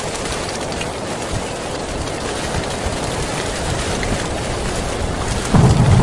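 Heavy rain pouring steadily on a tin roof. Near the end a thunderclap breaks in suddenly with a loud, low rumble that rolls on.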